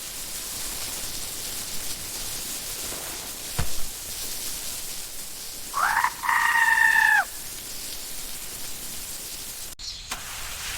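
One drawn-out animal call lasting about a second and a half, rising at its start and dropping away at its end, over a steady background hiss, with a single short knock a couple of seconds before it.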